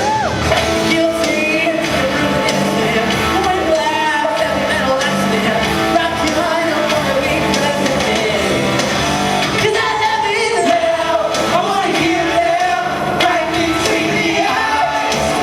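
Rock music with a singer, loud and continuous.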